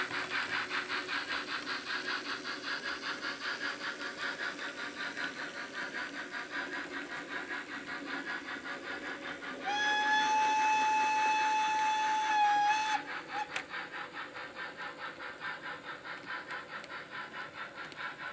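H0 model steam locomotive's sound, played through the model's speaker: steady, rapid chuffing as it runs, with one long steam whistle of about three seconds around a third of the way through, which is the loudest sound.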